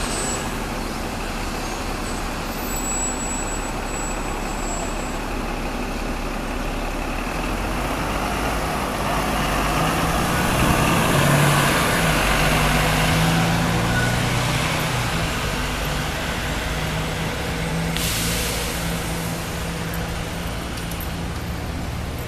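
Street traffic with a double-decker bus driving past close by, its low engine note loudest about halfway through over steady road noise. A hiss comes in near the end.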